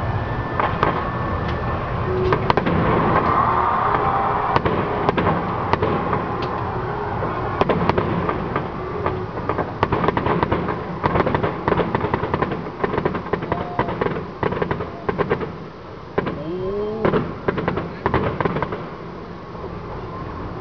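Fireworks display: a rapid, continuous string of bangs and crackles from bursting shells, densest in the middle and thinning briefly about three-quarters of the way through.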